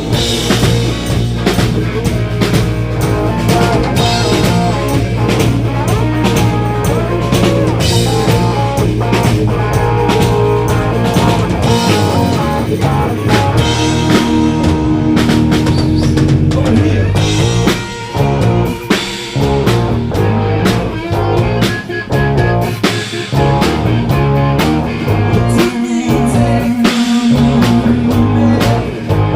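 Rock band playing with electric guitar and drum kit, a low sustained bass note held for about the first twelve seconds before the drums and guitar turn choppier and more rhythmic.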